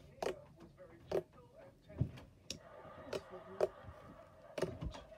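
Pink slime being squeezed and pressed by hand against a tabletop, giving a string of sharp, irregular clicks and pops, roughly one or two a second.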